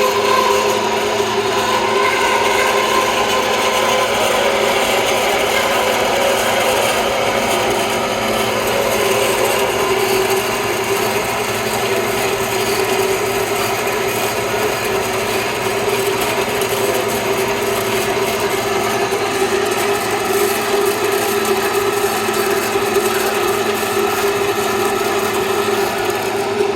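Rockwell 7x10 horizontal bandsaw running steadily, its motor humming while the blade rasps through the stock as the saw head feeds down.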